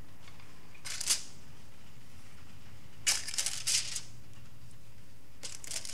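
Aluminum foil crinkling in three short bursts as cubes of butter are picked off a foil sheet and pressed into a disposable foil pan: one about a second in, a longer one around three seconds in, and one near the end.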